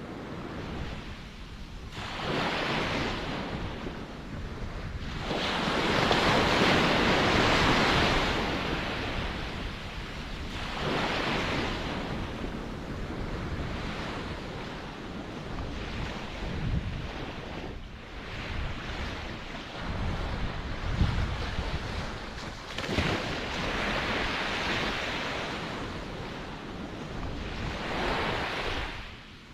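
Ocean waves surging and receding in slow washes of surf, the largest about six seconds in, with wind rumbling on the microphone at times.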